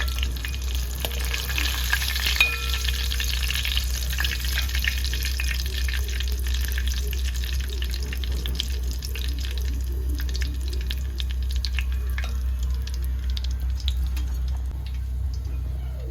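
Battered chicken pieces deep-frying in hot oil, a steady sizzle with dense crackling that is thickest in the first few seconds and eases off later, over a low steady hum.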